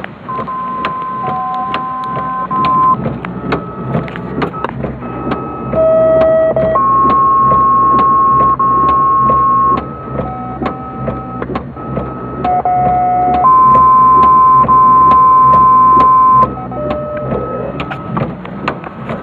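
Scanner radio receiving emergency dispatch tone-outs: two-tone sequential paging, each a short lower tone of about a second followed by a longer, higher tone of about three seconds, repeated several times. These are the alerting tones that set off responders' pagers.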